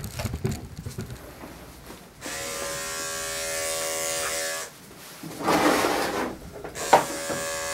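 Electric dog grooming clippers clipping a toy poodle's leg, running with a steady hum that starts about two seconds in. The hum drops out briefly past the middle, with a short rough noise, then starts again near the end.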